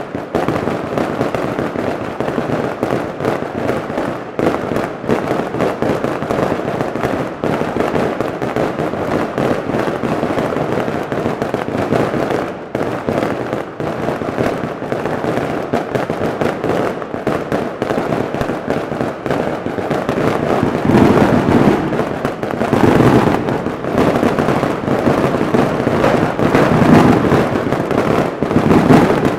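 Daytime fireworks barrage: a dense, continuous rapid crackle of firecrackers and small aerial bursts. It grows louder and heavier from about two-thirds of the way in.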